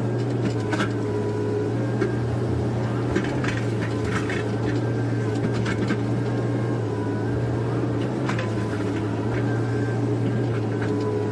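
Komatsu PC130F excavator working: the diesel engine runs steadily under a hydraulic whine that shifts in pitch now and then, with a few knocks as the bucket digs wet mud in a trench.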